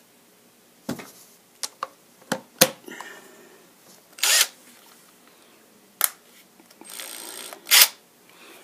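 An impact driver and socket being handled: a string of sharp clicks and knocks, then a short whir about seven seconds in and a loud click or burst right after it.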